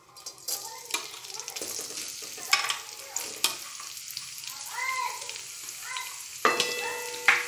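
Sliced onions and green chillies dropped into hot mustard oil in a steel kadhai, sizzling and spitting, with several sharp clinks of the steel plate against the pan.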